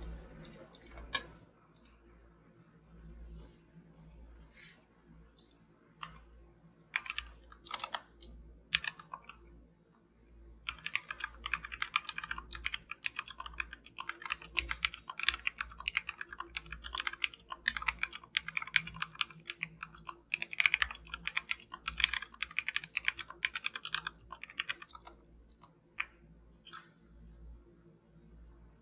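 Royal Kludge RK71 mechanical keyboard with XDA-profile keycaps being typed on. A few scattered keystrokes come first, then about fifteen seconds of fast continuous typing from around ten seconds in, easing back to single keypresses near the end.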